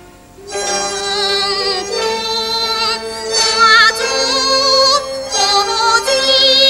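Teochew opera actress singing an aria in a high voice with wavering held notes, over the opera ensemble's accompaniment. The singing comes in about half a second in, after a brief near-pause.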